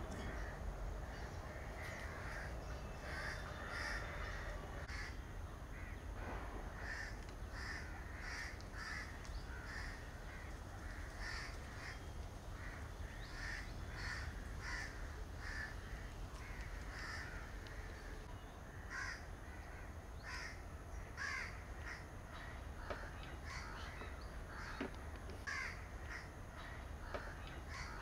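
Crows cawing, short calls coming one or two a second throughout, over a steady low rumble.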